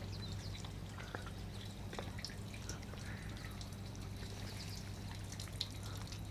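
Faint outdoor ambience: a steady low hum under a few scattered small ticks and short, faint high chirps.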